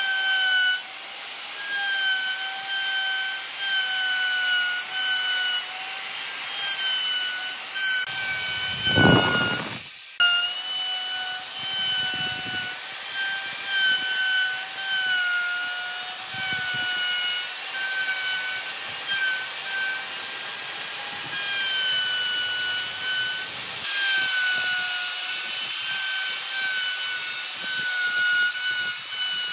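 Electric router running and cutting into wooden blocks: a steady high motor whine whose pitch sags slightly and recovers as the bit bites, over the hiss of the cut. About nine seconds in there is a brief loud low rumble, and the sound breaks off for a moment just after.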